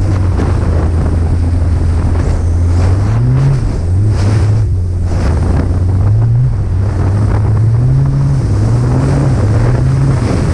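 Snowmobile engine running at a steady pitch, then its revs rising and falling repeatedly from about three seconds in, with wind buffeting the microphone.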